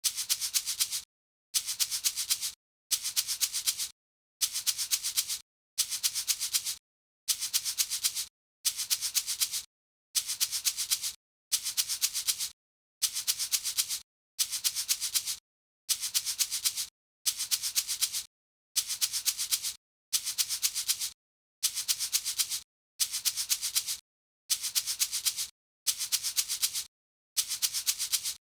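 Salt shaker being shaken: short bursts of several quick shakes, the grains rattling with a dry, high hiss, repeated about every second and a half with silent gaps between.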